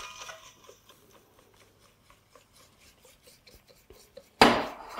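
Wire whisk in a stainless steel mixing bowl, stirring flour into a batter. The bowl's metallic ring fades at the start, a few faint taps follow, and about four seconds in loud whisking begins.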